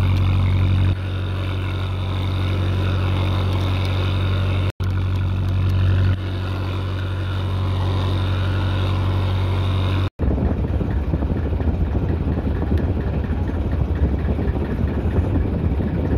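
Fishing boat's engine running steadily, cutting out abruptly for an instant twice. In the last six seconds it runs on under a rougher rush of wind noise on the microphone.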